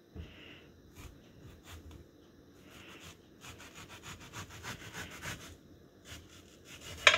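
Kitchen knife slicing through a peeled mango on a plastic cutting board: a run of soft scraping strokes as the blade draws through the flesh, with a sharp knock near the end.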